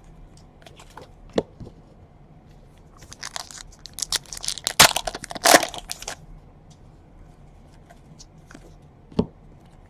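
Trading card pack wrapper being torn open and crinkled: a burst of tearing and crackling for about three seconds in the middle, with a few single clicks of cards being handled before and after.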